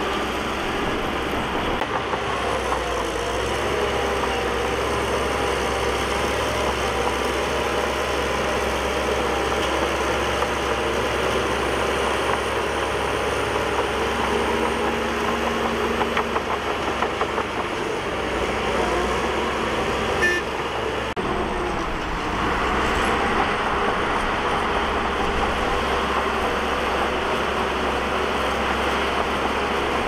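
Heavy diesel earthmoving machinery running steadily, with one short knock about twenty seconds in.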